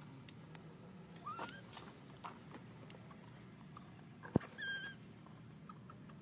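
A baby monkey giving short, high squeaky cries: a rising squeak about a second and a half in and another brief cry past the middle. A sharp click just before the second cry is the loudest sound.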